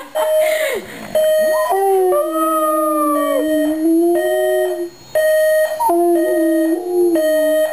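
A dog howling along to an electronic alarm clock's beeping. The alarm repeats a steady, high beep about every half second. Over it the dog gives a howl sliding down in pitch near the start, a long wavering howl in the middle, and shorter howls near the end.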